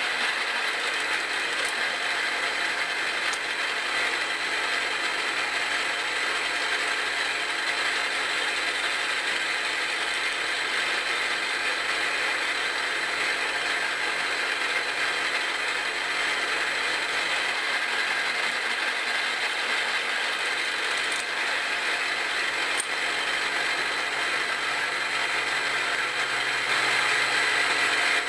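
Milling machine spindle driving a Tapmatic 30X automatic-reversing tapping head: a steady mechanical whir of the head's gearing as an M2.5 form tap threads and backs out of holes in 304 stainless steel. A little louder near the end.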